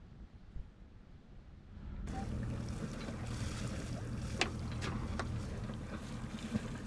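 Onboard a Reinke Super 10 sailboat sailing slowly under genoa with the engine off: steady wind on the microphone and water noise along the hull, with a few sharp clicks from the rigging. For the first two seconds there is only a faint low rumble.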